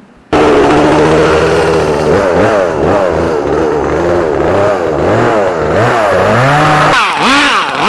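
Chainsaw running at high revs, its pitch repeatedly dipping and rising as it bogs and revs back up.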